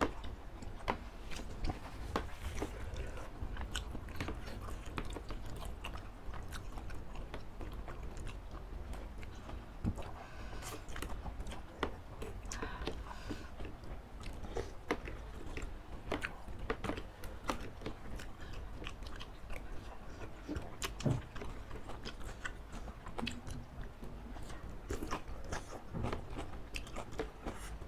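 Close-miked mukbang eating of spicy laksa noodles with octopus: wet chewing, biting and slurping of noodles, with many short clicks scattered throughout.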